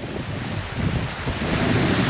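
Wind buffeting the microphone over a steady rushing noise. The low rumble of the buffeting grows stronger about a second in.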